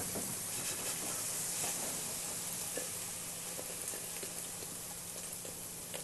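Steady sizzle of freshly fried potato cubes in a frying pan as they are slid out onto a plate, with a few faint ticks. The sizzle eases slightly toward the end.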